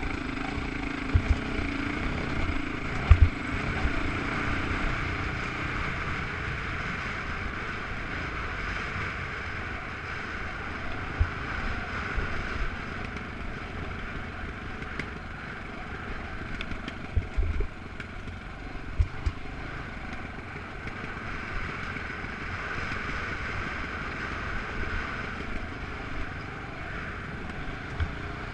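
An off-road vehicle running along a rocky dirt trail: steady engine and wind noise, broken by sharp thumps as it jolts over rocks, several near the start and a cluster later.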